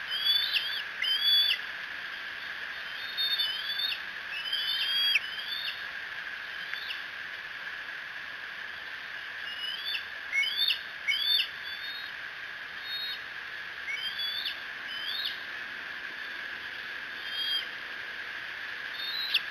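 Fledgling bald eagles squeeing, the begging calls of young eagles waiting for food. Short, high-pitched chirping calls come in bunches of several every few seconds over a steady high hum.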